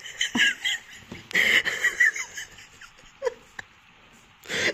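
Laughter and shrieks in short bursts: a shocked laughing reaction. The bursts come in the first two seconds and again near the end, with a quieter gap between.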